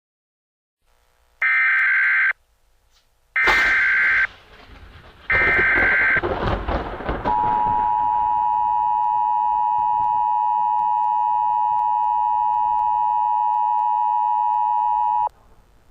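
Emergency Alert System SAME header: three short, harsh digital data bursts about two seconds apart, opening a new alert. A low rumble sits under the second and third bursts. Then the EAS two-tone attention signal sounds steadily for about eight seconds and cuts off suddenly.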